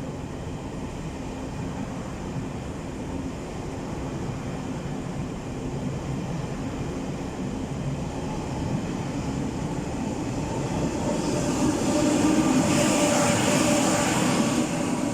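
Taiwan Railway Tze-Chiang express train pulling out of the underground station. Its running noise grows steadily louder as it gathers speed, and a loud hiss joins in about twelve seconds in as the cars pass close.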